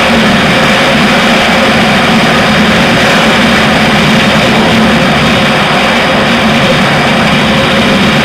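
A Honda Wave 125i's single-cylinder four-stroke engine running steadily at full throttle during a top-speed run, under a loud, constant rush of wind.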